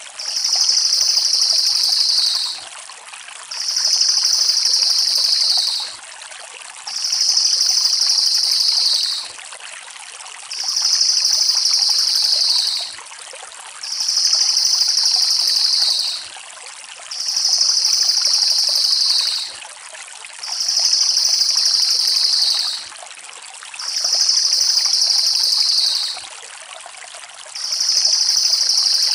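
Crested jay (cililin) giving a fast, high, rolling rattle about two and a half seconds long, repeated about every three seconds, each call dropping slightly in pitch at its end.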